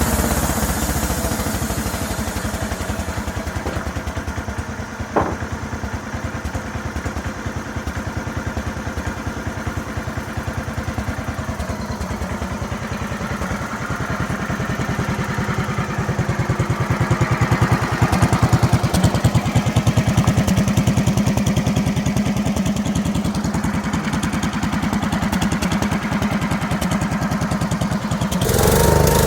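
Small gasoline engine of a homemade sawmill running steadily, with one sharp click about five seconds in. The sound changes abruptly and grows louder just before the end.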